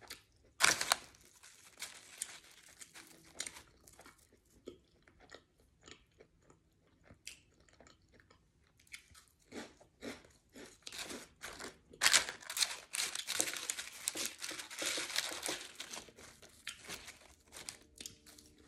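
A person chewing and crunching food close to the microphone: wet mouth sounds and crisp crunches, with a spell of loud, fast crunching about twelve seconds in, typical of a mouthful of crunchy hot fries.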